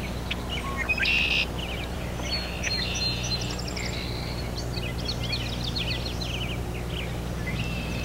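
Red-winged blackbirds singing and calling in a territorial contest between males: short buzzy trills and a run of quick downslurred notes, over a steady low hum.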